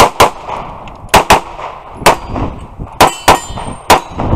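Semi-automatic pistol fired rapidly at steel targets, about eight shots, mostly in quick pairs, with the ring of hits on the steel plates.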